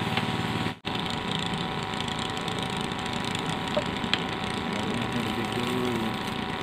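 A motor running steadily, a dense even drone with a fine regular pulse, cutting out for an instant almost a second in.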